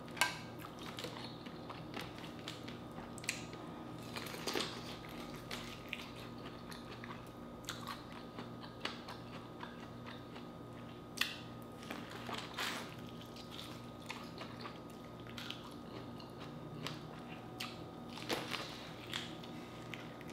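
Close-up eating sounds: chewing and biting, broken by scattered sharp clicks and crackles as seafood-boil shellfish and corn are picked apart and eaten. Near the end comes a bite into corn on the cob.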